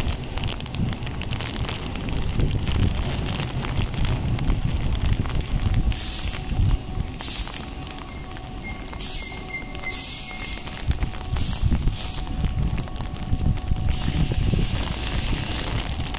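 Tobu 8000 series electric train pulling into the platform and braking to a stop. Wheels rumble low over the rails, with repeated short air-brake hisses from about the middle and a brief high brake squeal among them. A longer hiss comes near the end as the train comes to rest.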